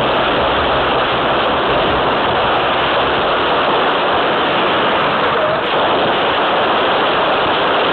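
Loud, steady rushing noise like static, with no distinct shots, knocks or voices standing out; it dips briefly a little past halfway.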